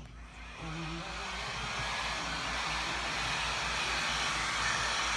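Heat gun switched on and blowing a steady rush of hot air, coming up to full strength within the first second, drying a fresh coat of white paint on a wooden paint stir stick.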